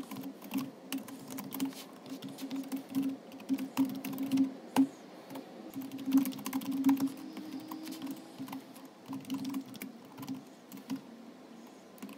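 Computer keyboard typing: irregular runs of quick keystrokes with short pauses between them.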